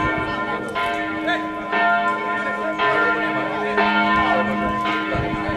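Church bells ringing, a fresh strike about once a second, their long tones overlapping and hanging on between strikes.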